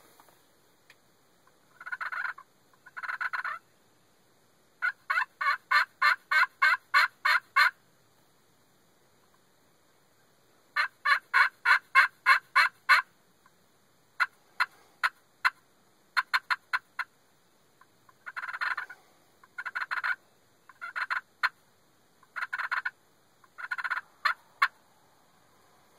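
A turkey call working out hen-turkey yelps. It gives two single notes, then two quick runs of about ten yelps each, at roughly four a second. Softer short clucks follow, then a string of longer, spaced yelps near the end.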